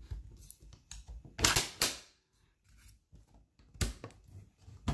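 Kel-Tec KSG shotgun's grip and trigger assembly being fitted into the receiver: sharp clicks and knocks of polymer and metal parts, two close together about a second and a half in and more near the end, with light handling noise between.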